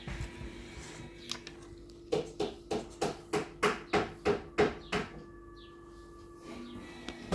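A quick run of about ten sharp knocks, about three a second, over a faint steady tone.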